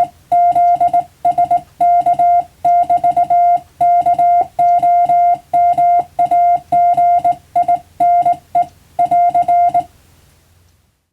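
Morse code sent as a single steady tone of about 700 Hz, keyed on and off in fast dots and dashes over a faint low hum. The sending stops about a second before the end.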